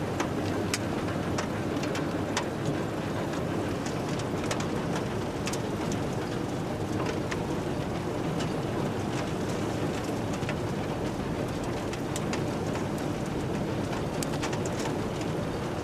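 Potato harvester running with a steady mechanical drone, while potatoes clatter and knock on the metal rods of its conveyor and sorting table in many irregular sharp clicks.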